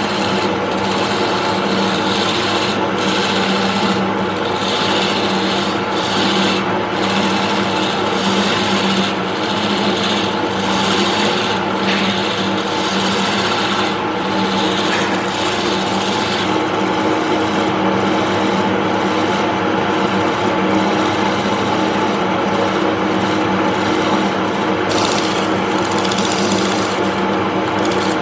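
Wood lathe motor running with a steady hum while a tool scrapes and rasps against the spinning mahogany, the scraping breaking off briefly every second or two.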